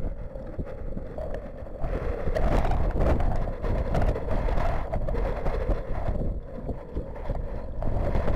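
Storm wind buffeting the outdoor camera's microphone in heavy rain: a dense, loud rushing noise broken by many sharp crackles, growing louder about two seconds in.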